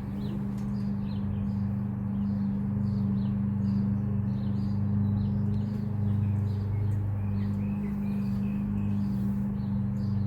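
A steady low hum, with small birds chirping repeatedly over it.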